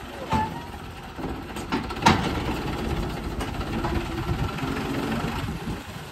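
Hindustan tractor's diesel engine running slowly at low revs, a steady low rumble, with a sharp metallic knock about two seconds in.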